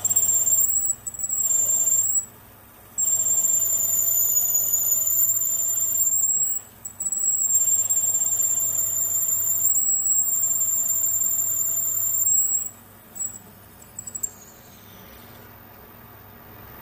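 A drill squealing as it cuts into a bronze brake-cylinder casting turning in a lathe: a loud, high-pitched squeal that breaks off briefly and comes back several times, then stops about thirteen seconds in with a few short squeaks. Under it the lathe runs with a low steady hum.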